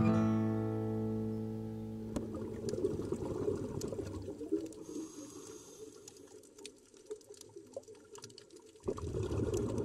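A final acoustic guitar chord rings out and fades over about two seconds. Then a water sound takes over: an irregular noise with scattered clicks, which swells again near the end.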